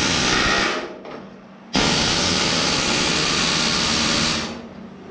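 Air hammer driving a hot rivet, in two bursts: a short one ending about a second in, then a longer one of about two and a half seconds that stops sharply. This is the rivet being set to hold a custom cowl foot to a steel firewall.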